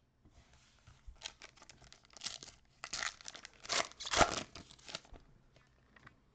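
A foil trading-card pack being torn open and its wrapper crinkled, a run of crackling tears that is loudest about four seconds in.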